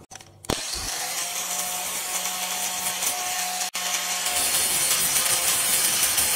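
Angle grinder starting about half a second in and running steadily as it grinds about a millimetre and a half off the face of a small steel block, a steady motor whine under the grinding noise. The sound breaks off for an instant just before the four-second mark.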